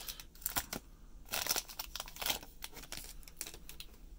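Plastic wrapper of a trading-card pack crinkling and tearing as it is pulled open by hand, in short, irregular bursts that are loudest about a second in.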